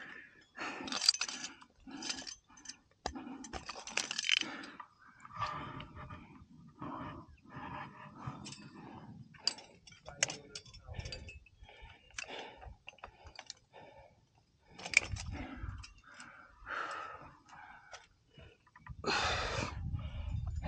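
Rock climber's breathing in short puffs about once a second while climbing, mixed with sharp clicks and clinks of metal climbing gear and scuffs on the rock.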